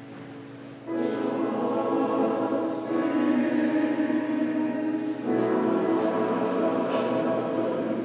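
Church choir singing in long held chords, coming in loudly about a second in and moving to a new chord every couple of seconds.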